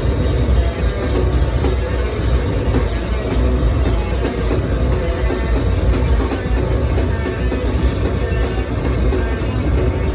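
Noise-rock duo playing loud and dense: rapid drum kit under heavily distorted bass guitar, with no break.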